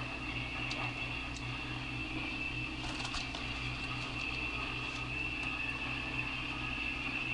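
Steady room hum: a low electrical or fan hum with a thin high whine above it, and a few faint clicks about three seconds in.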